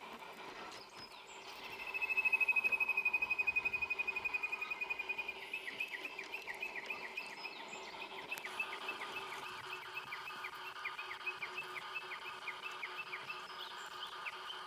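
A high, fast-pulsing animal trill starting about two seconds in, which breaks after a few seconds into a long series of short repeated chirps, over a faint steady hum.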